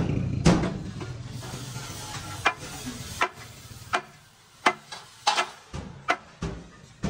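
A series of sharp knocks, irregularly spaced about one or two a second and closer together in the second half, over low rumbling noise that fades after about the first second.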